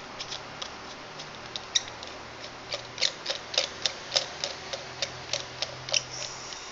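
Light metallic clicks and ticks from the metal tube and top cap of a Congestus mechanical mod being handled and screwed together. The clicks come irregularly, a few a second, and are busiest in the second half.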